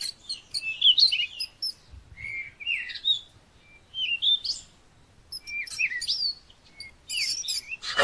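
Small birds chirping and twittering in quick, high notes that glide up and down, in several short bursts with brief pauses between them.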